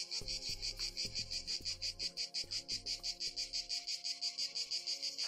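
Insect chirring in a fast, even pulse of about eight to ten chirps a second, high-pitched and unbroken.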